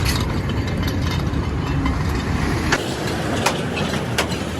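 Vehicle engine idling with a steady low drone, with three sharp clicks in the second half.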